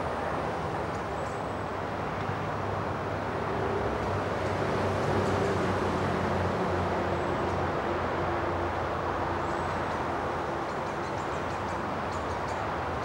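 Distant engine rumble, steady, swelling a little in the middle and easing off again, with a faint hum that drifts slightly lower in pitch.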